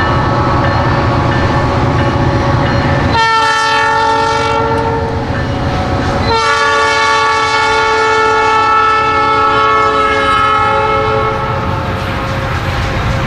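Diesel freight locomotive's multi-chime air horn sounding as the train passes: a shorter blast about three seconds in, then a long blast that drops slightly in pitch as the locomotive goes by, fading near the end, over the rumble of the train rolling past.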